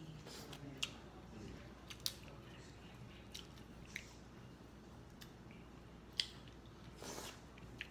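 Close-miked mouth sounds of eating crab legs: chewing and biting, with several sharp clicks and a short rustling noise near the end.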